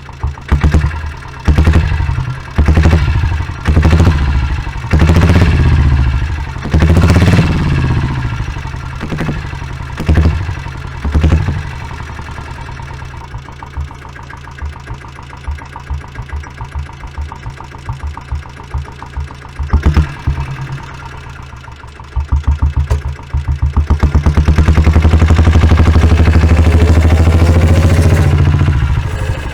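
Stock exhaust of a 1996 Royal Enfield factory-built diesel Bullet's single-cylinder engine, heard close to the pipe with the bike standing. It is blipped to a rev about a dozen times in the first twelve seconds, settles to a slow, even idle, then is held at a rev for about five seconds near the end before dropping back to idle.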